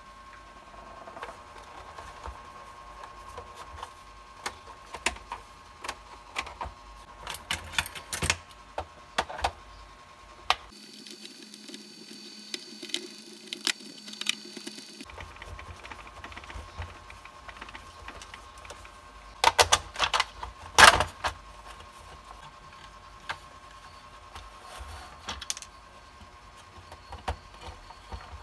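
Hand work on the plastic housing of a fluorescent emergency light: a screwdriver undoing screws, and the case being handled and opened, giving scattered clicks, taps and knocks. A cluster of louder knocks comes about twenty seconds in, and a faint steady whine runs underneath.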